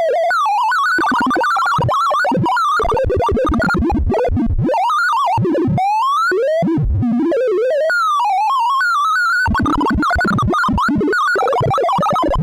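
Sound of Sorting audio for a bitonic sort: a synthesized beep whose pitch tracks the values being compared and swapped, jumping rapidly up and down in zigzag runs and longer rising and falling sweeps as the sorting network's merge passes run through the array.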